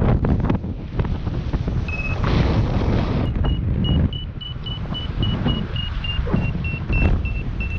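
Wind buffeting the microphone in flight under a paraglider, with a variometer beeping about four times a second from about three seconds in, after a single short tone near two seconds. The quick beeping signals that the glider is climbing in lift.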